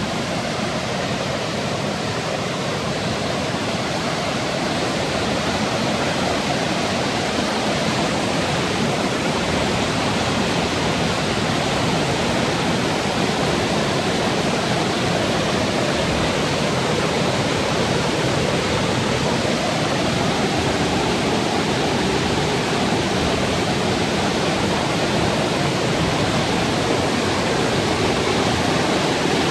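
Steady, loud rush of a steep mountain torrent cascading in whitewater over boulders, growing slightly louder toward the end.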